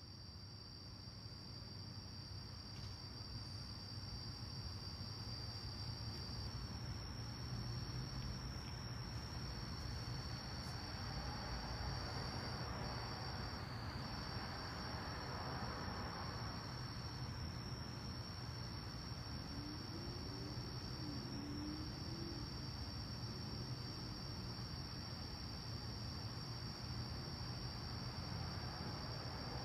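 Crickets trilling steadily in a continuous high chorus, fading in over the first few seconds, over a low steady rumble; a faint rushing sound swells and fades around the middle.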